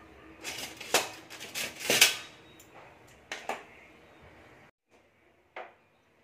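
Metal spoon clinking and scraping against a metal kadai as food is served out of it: a cluster of clatters in the first two seconds, two more a little later, then one short knock near the end.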